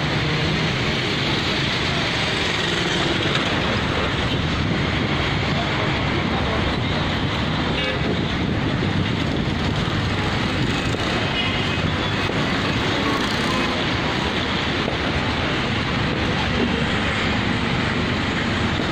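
Steady background noise of road traffic, an even hum without single standout events, with faint voices now and then.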